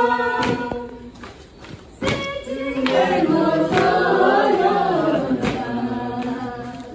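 A group of voices singing together as they dance in a circle. The singing thins out about a second in and comes back fuller about two seconds in.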